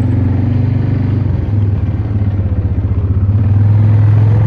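Yamaha Grizzly 400 ATV's single-cylinder engine running steadily at low speed under way, a little louder in the second half.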